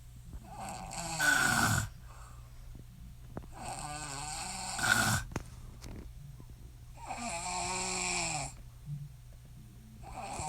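A woman snoring in her sleep: three long snores about three seconds apart, each well over a second long.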